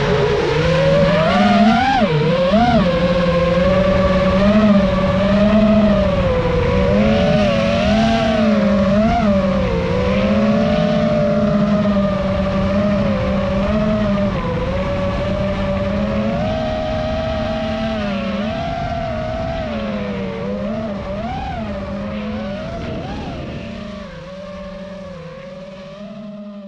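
FPV racing quadcopter's motors and propellers whining, the pitch rising and falling continuously with the throttle; the sound fades away near the end.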